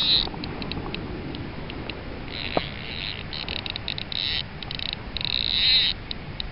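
Fly reel's click-and-pawl drag ratcheting in several bursts of rapid clicking, the longest about two seconds in and near the end.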